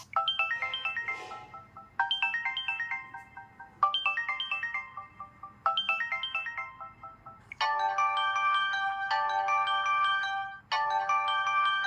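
Samsung Galaxy Mini stock ringtones: a short phrase of bell-like electronic notes repeats about every two seconds, then about three-quarters of the way in it switches abruptly to a different ringtone, a fuller chiming phrase repeating about every one and a half seconds.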